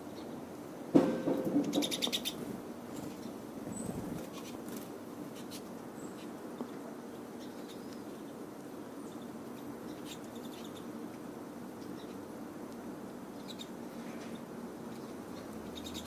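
Pine siskins feeding at close range: a few faint, short, high chirps and scattered light ticks over a steady low background, with one brief, louder rustle about a second in.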